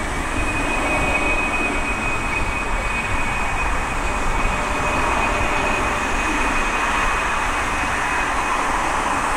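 Jet airliner engines running: a steady broad rush with a thin high tone held over it.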